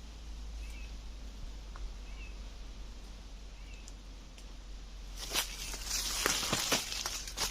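A small bird gives a faint short chirp about every one and a half seconds. At about five seconds in, a louder crackling rustle of dry leaves and twigs begins, like movement through undergrowth, and it goes on to the end.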